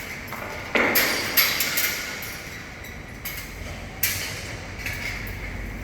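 Metal scaffolding parts clanking as they are handled during dismantling: a few sharp, ringing metallic strikes, two close together about a second in and another about four seconds in.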